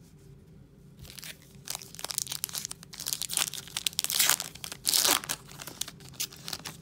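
A foil trading-card pack being torn open by hand: the wrapper crinkles and tears in a run of crackling rustles, loudest about four to five seconds in.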